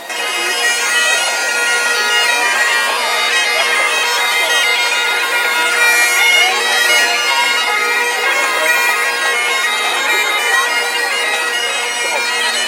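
Highland bagpipes playing a tune, the changing chanter notes over the steady drones.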